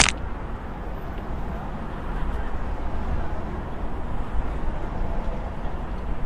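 A brief sharp noise at the very start, then steady outdoor background noise with a low rumble.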